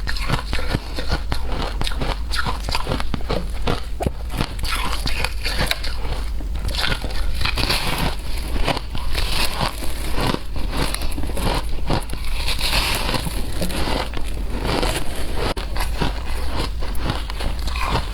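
A person chewing shaved ice, with a dense, irregular run of crisp crunches.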